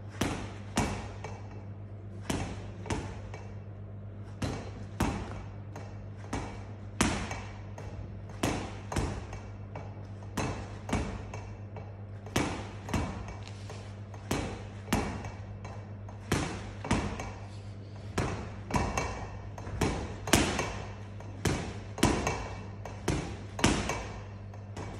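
Boxing gloves hitting the arm of a spinning speed bar in a one-two-duck rhythm: pairs of sharp smacks about every one and a half seconds. A steady low hum runs underneath.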